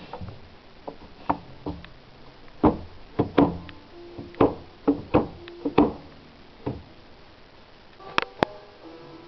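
Wooden knocks and rattles of a solid-wood chest's drawer and its hidden secret catch being handled, about a dozen knocks spread over several seconds, then two sharp clicks near the end.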